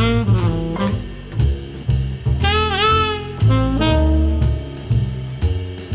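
Background jazz music: a lead melody over a walking bass line and drums, with one lead note about halfway through that dips in pitch and comes back up.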